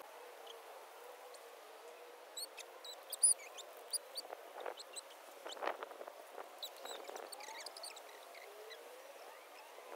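Quiet garden ambience: small birds chirping in short scattered notes, mostly in the first half, with a few soft scrapes of a hand weeding tool in the soil.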